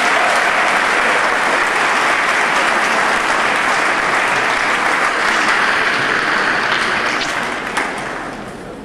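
Audience applauding, a steady wash of clapping that fades away near the end.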